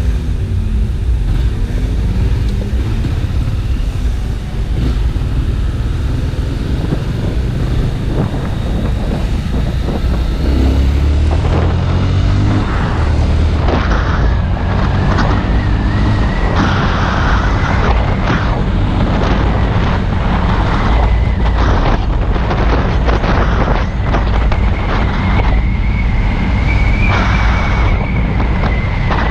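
Honda Twister motorcycle's single-cylinder engine running under way, heard with wind buffeting the microphone; the engine climbs in pitch as it accelerates about eleven seconds in. A thin steady high whistle joins about halfway through.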